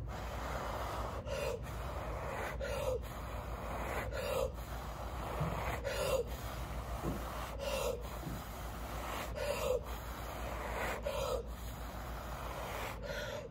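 A person blowing through pursed lips onto wet acrylic pour paint to push the puddle outward into a bloom. About nine breathy blows in a row, each a little over a second long, with short breaths in between.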